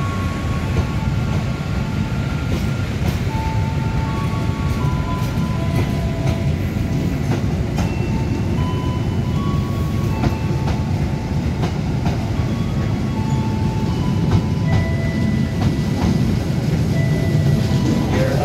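Intercity passenger train coaches rolling past a platform: a steady heavy rumble of wheels on rails with scattered clacks as the wheels cross rail joints. A simple tune of single notes plays along above it.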